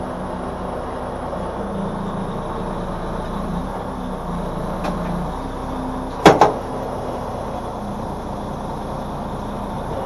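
2012 Freightliner Cascadia tractor's diesel engine running steadily at low speed, with a loud, sharp double clunk about six seconds in.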